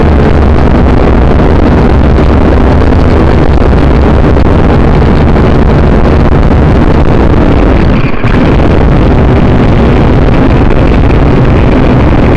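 Syma quadcopter's motors and propellers, heard through its own onboard camera microphone: loud and steady, with rushing wind noise, dipping briefly about eight seconds in.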